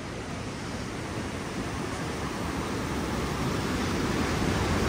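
A shallow, rocky mountain river rushing over stones, a steady wash of water noise that grows steadily louder.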